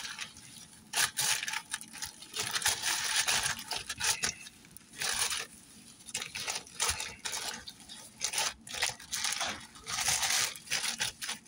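Plastic crinkling and rustling in irregular bursts as gloved hands work seasoning into raw cube steak on a plastic bag liner.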